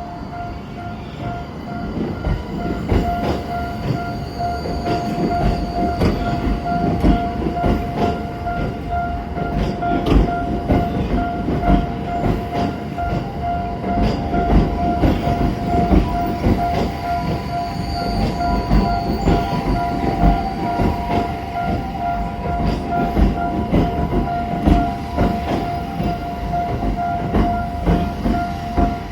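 A level-crossing alarm dinging over and over while a Ginza Line subway train rolls through the crossing. There is a steady rumble with many wheel knocks over the rail joints.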